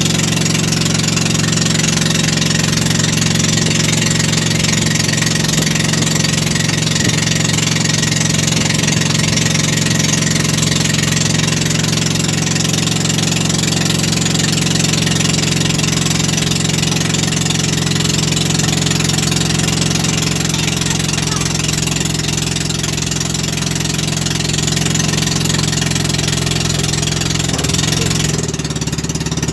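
Fishing boat's engine running at a steady speed, with an unchanging note.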